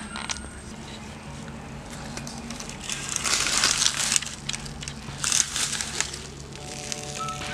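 Charred, steamed banana leaf crinkling and crackling as it is peeled open from fish paturi, in a longer spell about three seconds in and a short one just after five seconds.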